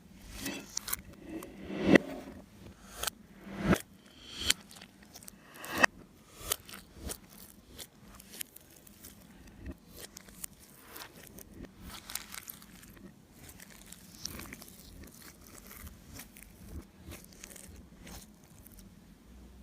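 Slime being pressed, stretched and mixed by hand, giving a run of sticky crackles and pops. A few louder pops come in the first six seconds, followed by a long stretch of small, quick crackles.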